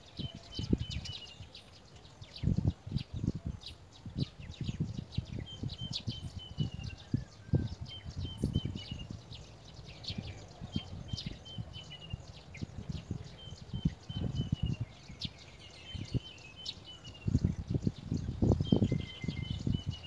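A bird calling a short run of high notes that step down in pitch, repeated about every two to three seconds. Under it, low rumbling gusts of wind on the microphone are the loudest sound.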